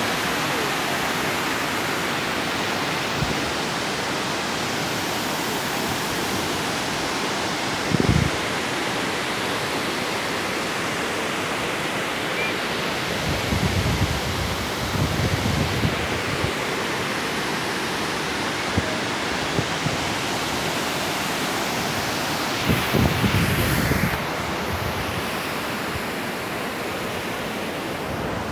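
Water pouring over a dam's overflow weir, a steady rushing. Gusts of wind buffet the microphone several times, most strongly about eight seconds in and again a little past twenty-two seconds.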